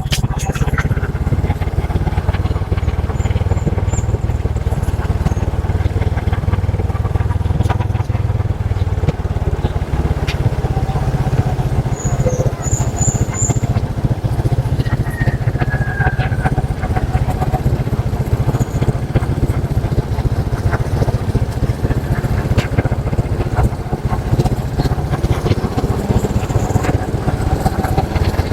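Motorcycle on the move along a road, its engine running with a steady, unbroken low rumble.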